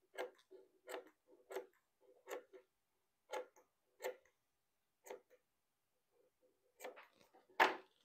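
Scissors snipping fabric, a series of short crisp clicks about one to two a second, pausing briefly before a final few snips and a louder knock near the end.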